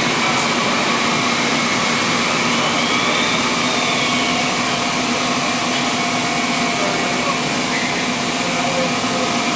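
Steady machine-shop drone: a continuous loud hiss of air and running machinery with several steady hums under it. A faint whine rises and falls once about three seconds in.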